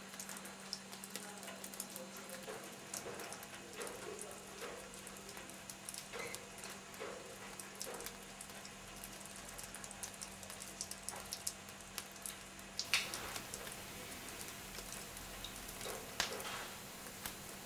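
Faint patter and drips of rainwater, with many small scattered ticks and a low steady hum underneath.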